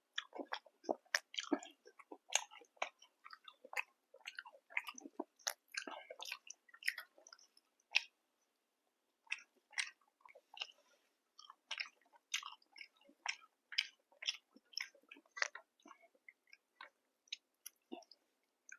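Close-miked chewing of food: a run of irregular, wet mouth clicks and bites, with a short pause a little past the middle.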